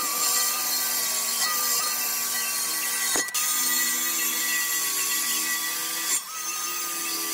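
Cordless drill spinning a wire wheel against a metal transmission pan, wire-brushing the metal clean: a steady motor whine over a scratchy hiss of wire on metal. It drops out briefly about three seconds in and dips again around six seconds in.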